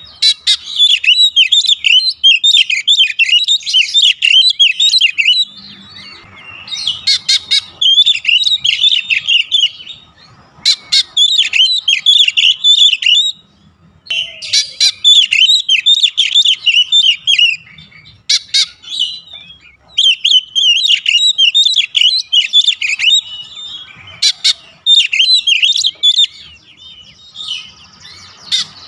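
Oriental magpie-robin singing a loud, fast run of high chirps and whistles. The song comes in phrases of several seconds with short pauses between them, and a few sharp clicks are mixed in.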